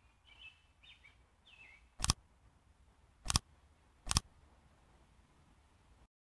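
Faint ambient bird chirps from a campus map app's soundscape, then three sharp button-click sound effects about a second apart as menu buttons are pressed. All sound cuts off abruptly near the end as the app's sound is switched off.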